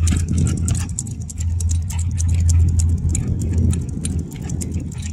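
Wind rumbling on the microphone of a moving bicycle rider, a steady low rumble that eases briefly a little over a second in and again about four seconds in, with many quick, light ticks and clicks throughout.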